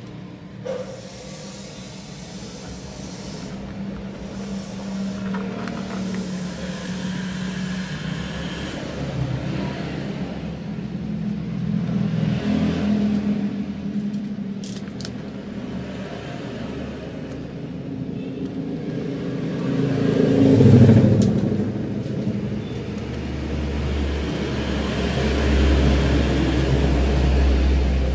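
Heat gun blowing steadily while carbon-kevlar wrap film is heated and pressed onto a plastic grab rail, with a low rumble that swells about twenty seconds in and again near the end.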